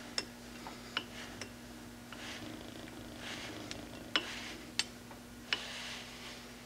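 Lathe carriage being moved by hand along the bed: scattered sharp clicks and a few short, soft rasping sounds from the handwheel and carriage, with the dial indicator tip riding along the alignment bar, over a steady low hum.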